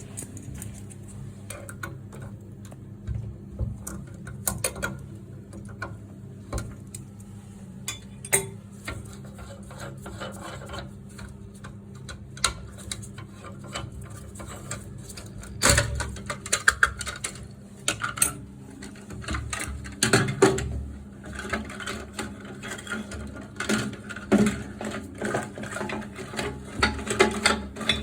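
Parts of a Geberit concealed toilet cistern being handled: irregular clicks, knocks and rattles, with busier clusters about halfway through and near the end.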